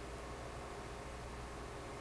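Steady background hiss with a faint low hum: room tone, with no distinct sound events.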